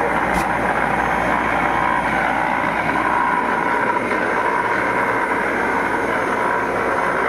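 Electric regenerative side-channel (ring) aeration blower running steadily with an even, noisy rushing hum. It is working well, putting out a tremendous amount of air at good pressure.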